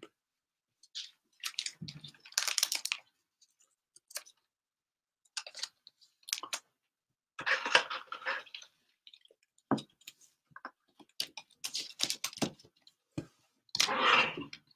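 Thin clear plastic card sleeve crinkling and rustling in short irregular bursts as a trading card is slid into it. Light clicks and taps come from the card being handled and set in a stand.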